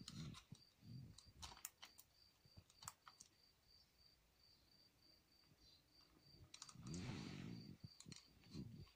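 Faint clicks and handling noise from a small plastic LPG changeover switch and its wires held in the hand. Behind them a faint high-pitched tone pulses on and off several times a second, with a brief hiss about seven seconds in.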